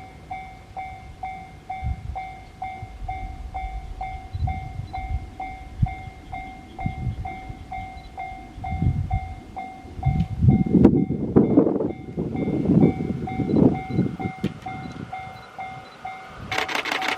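Japanese level-crossing warning bell dinging in a steady, rapid rhythm while a JR East E653 series electric express train approaches with a rumble that swells and grows louder. Near the end the train reaches the crossing and its passing noise suddenly drowns out the bell.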